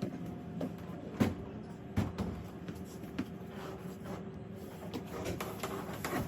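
Light knocks and clatter of wooden sauna parts being handled, with two sharper knocks about a second and two seconds in.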